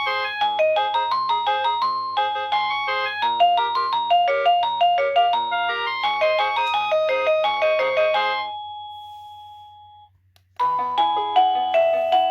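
X-Sense wireless doorbell receiver playing one of its electronic chime melodies, a quick run of bell-like notes. The melody ends about two-thirds of the way in, dying away on one held note, and after a short silence the next tune starts near the end. A faint low electrical hum runs underneath.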